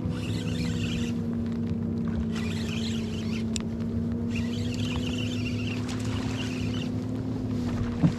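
Boat motor running at a steady pitch, with a hiss that comes and goes over it, and a single short knock near the end.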